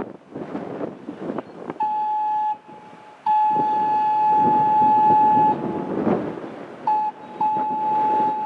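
Train horn sounding the long, long, short, long grade-crossing signal: four blasts of one steady note, the short one near the end and the last held past it, over the rumble of the passing train.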